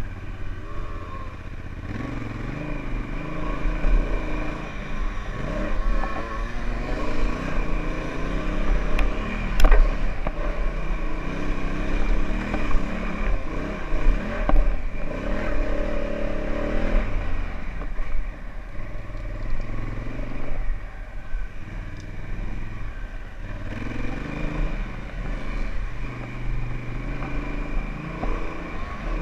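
Honda Africa Twin's parallel-twin engine pulling along a dirt trail, the revs rising and falling as the throttle is worked, over a steady low rumble. A single sharp knock about ten seconds in.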